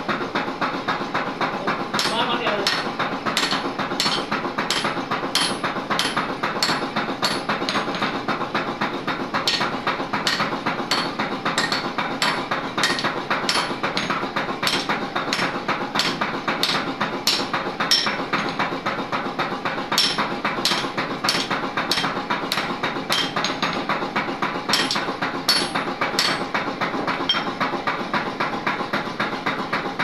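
Hand hammer striking a red-hot steel chisel blank on a steel anvil, about two sharp blows a second with a short pause about eight seconds in, over a steady noisy background.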